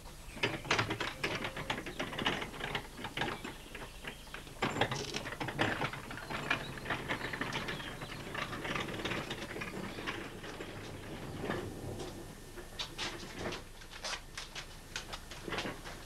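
Rapid, irregular clicking and knocking from hand work on a small home-built railway brake van, a ratchet-like mechanical clatter.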